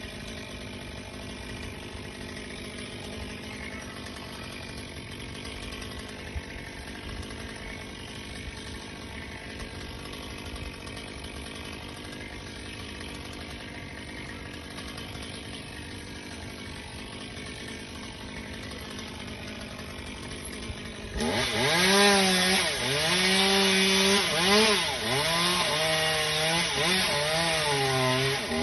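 A small engine idles steadily for about twenty seconds. Then a chainsaw is throttled up and cuts into wood, much louder, its pitch sagging and recovering again and again as the chain bogs in the cut.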